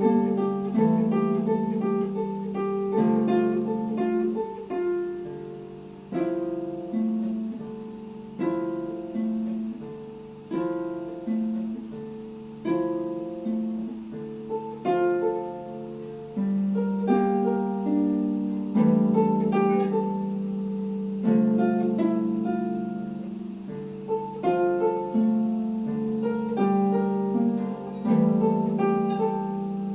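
Solo concert harp playing, plucked chords and melody notes ringing over a repeating low bass line.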